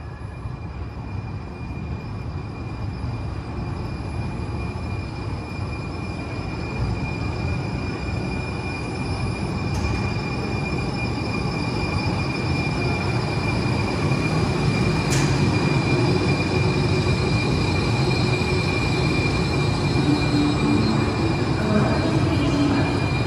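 Muni Metro Siemens S200 light-rail train pulling into the station, its rumble growing steadily louder as it draws near, with a steady high-pitched tone running over it.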